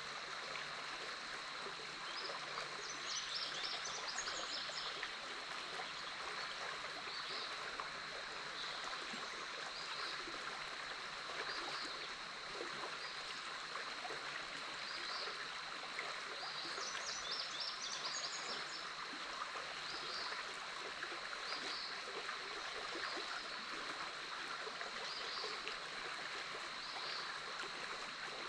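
The Big Otter River flowing steadily past its bank, a constant rush of moving water. Over it run a thin, steady high-pitched tone and short high calls repeating every second or two, with bursts of rapid chirping twice.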